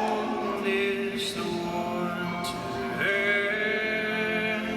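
Several voices singing a slow song in harmony, with long, drawn-out notes and a new phrase starting about three seconds in.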